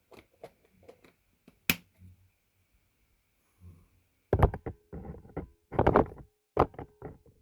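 Knocks and clicks from handling parts and tools during a bike cable repair: a few light clicks, one sharp click, then from about four seconds in a run of loud knocks and clatters.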